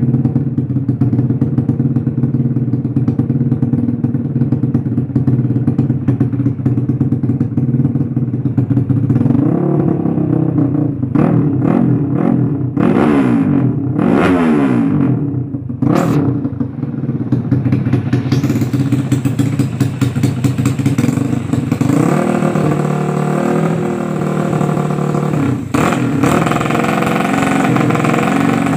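Yamaha Jupiter Z motorcycle's single-cylinder four-stroke engine running through a homemade exhaust made from a mosquito-repellent spray can. It idles steadily, then from about ten seconds in it is revved up and down several times, and over the last ten seconds it is held at higher revs and sounds louder and brighter.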